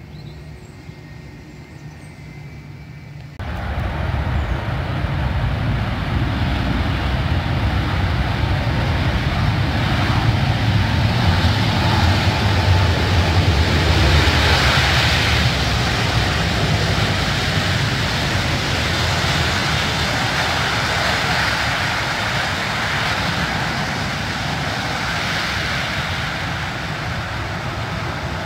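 Jet engine noise of an Emirates Airbus A380 moving past on the airfield: a deep rumble with a rushing hiss. After a few seconds of quieter background it starts abruptly, swells to its loudest about halfway through, then eases off.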